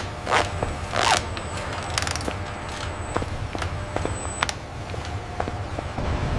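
Metal mechanisms clicking and clanking irregularly, with two short rising squeaks in the first second or so, over a steady low hum.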